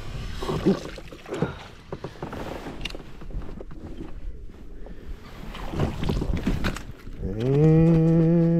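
A hooked spotted bass splashing at the surface as it is reeled in. Near the end a loud, low drawn-out sound rises in pitch and then holds for about a second and a half, as the fish is swung aboard the kayak.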